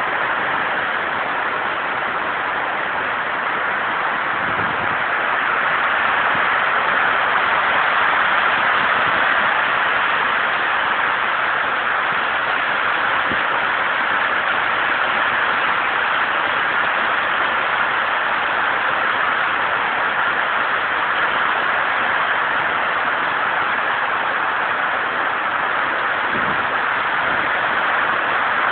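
Heavy rain shower pouring down steadily, heard from under a carport roof.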